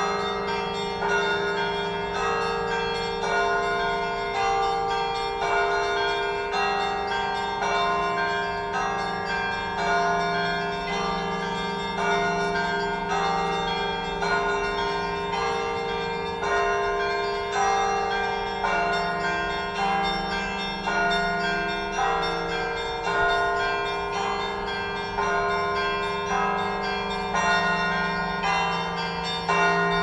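Russian Orthodox church bells ringing: a peal of several bells, with new strikes about once a second over the long hum of the lower bells.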